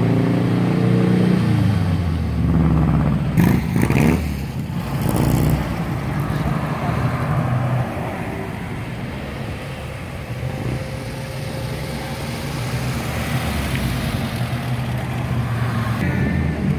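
Parade vehicles passing slowly at the roadside. A car's engine falls in pitch and fades as it goes by in the first two seconds, then a steady low engine rumble from slow-moving vehicles continues. A few sharp knocks come about four seconds in, and the engine sound grows again near the end as another vehicle approaches.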